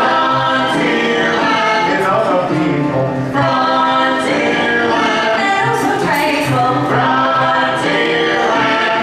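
Live stage-show music: singing with musical accompaniment.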